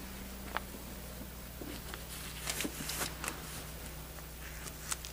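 Quiet room tone with a steady low hum, broken by a few faint scattered clicks and rustles, most of them about two to three seconds in.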